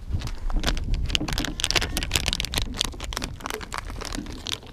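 Crinkly plastic soft-lure packet and tackle tray being handled: a quick, irregular run of small crackles, clicks and rattles, over a low rumble.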